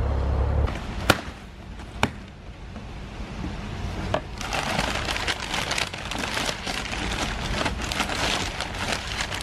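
Crumpled brown packing paper and cardboard box flaps rustling and crinkling as hands dig into a box, from about four seconds in, after two sharp snaps a second apart. It opens on the low rumble of the Maserati Ghibli S's running engine, which cuts off within the first second.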